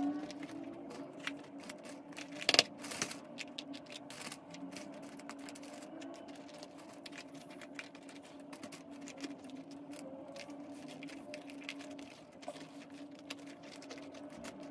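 Coarse bark pieces clicking and rattling against a small plastic orchid pot as they are dropped in and pressed around the roots by hand. One sharper knock comes a couple of seconds in, and a steady low hum runs underneath.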